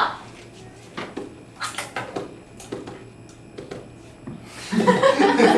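A few small, scattered clicks and knocks, then about four and a half seconds in, several voices talking at once.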